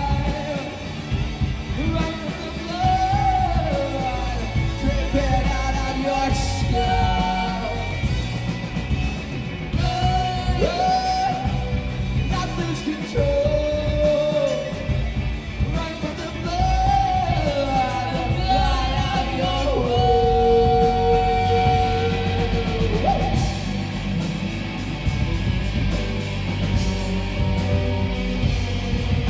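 Alternative rock band playing live: a sung lead vocal over electric bass, electric guitar, drums and keyboard. The singing stops about three-quarters of the way through and the band plays on.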